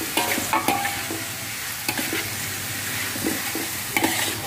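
Metal slotted turner stirring and scraping sliced onion, tomato, green chili and chicken pieces around a steel wok, with a few irregular metal-on-metal clinks over a steady sizzle of frying.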